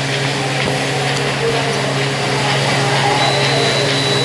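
Steady hum and drone of factory machinery running, with a thin high whine joining about three seconds in.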